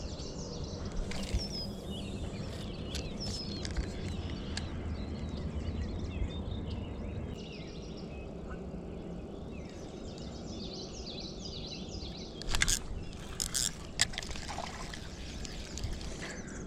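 Outdoor ambience by the water: a steady low rumble of wind and background noise with small birds chirping, and a few sharp clicks and knocks about three quarters of the way through.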